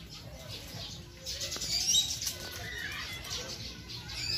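Small birds chirping, with many short calls gliding up and down and overlapping. The calls are loudest about two seconds in.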